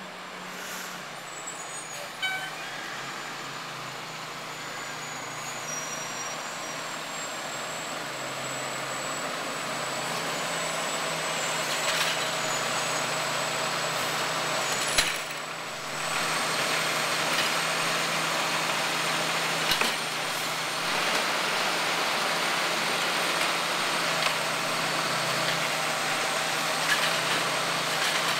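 Garbage truck engine running as the truck comes along the street, growing steadily louder, with a few sharp knocks along the way.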